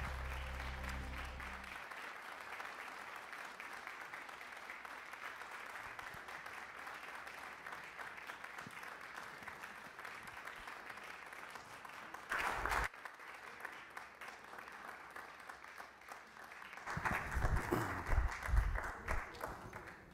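An audience applauding steadily, with low music under it that stops about two seconds in. A short loud knock comes about twelve seconds in, and a run of low thumps near the end.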